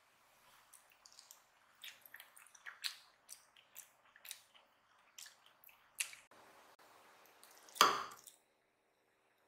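A metal fork cutting into a soft egg omelette on a plate: a run of short, wet clicks, then one much louder sound about eight seconds in as the fork presses through.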